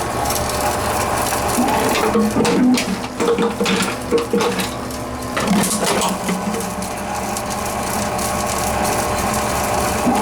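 Tomra T-X2 reverse vending machine running, its motor humming steadily with irregular clicks and knocks as containers are fed in and handled by the mechanism.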